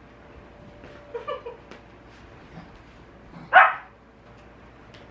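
Small white spitz-type dog barking in excited play: a few quick soft yips about a second in, then one loud sharp bark past the middle.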